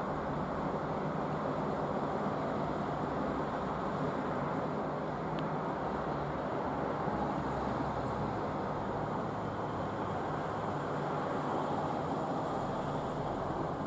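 Steady outdoor background noise, a hum much like distant road traffic, with no distinct events and no thunderclap standing out.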